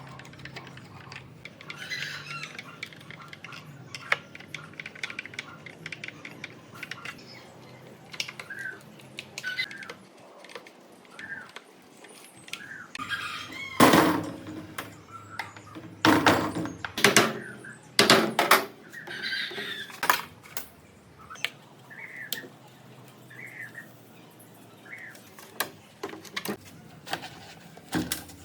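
A run of loud, sharp knocks or bangs in the middle, over short high chirps or squeaks heard on and off throughout.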